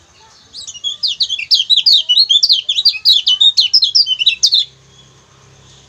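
Kecial kuning, a white-eye, giving a fast, loud burst of high chirping song that starts about half a second in and stops abruptly after about four seconds.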